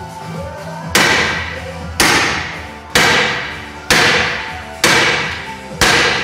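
Hammer blows on steel: six hard strikes about a second apart, each ringing out and fading. They are knocking the lower ball joint free of a Corsa's front suspension arm.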